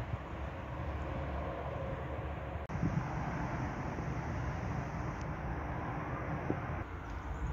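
Steady outdoor background rumble with a hiss of wind and distant traffic. About two and a half seconds in, it drops out for an instant where the recording is cut.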